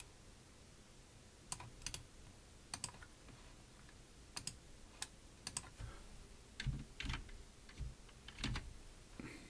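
Scattered, irregular clicks of computer keyboard keys and mouse buttons, a dozen or so single presses rather than continuous typing, some with a soft thud beneath them a little past the middle.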